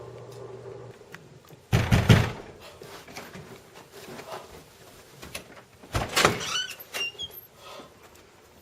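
A door banging twice, about four seconds apart, with short high squeaks after the second bang.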